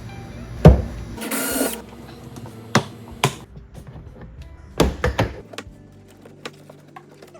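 Plastic interior trim panel on a Nissan Xterra being pried off by hand, its retaining clips letting go with sharp snaps and knocks. The loudest snap comes about a second in, followed by a short scrape and several lighter clicks over the next few seconds.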